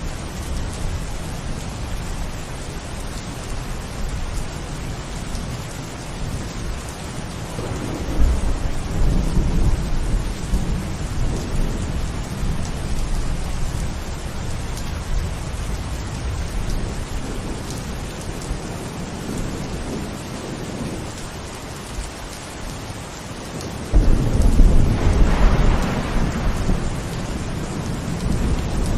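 Steady heavy rain falling, with rolling thunder: a low rumble swells up about a third of the way in, and a sudden, louder crack of thunder breaks in near the end and rumbles away.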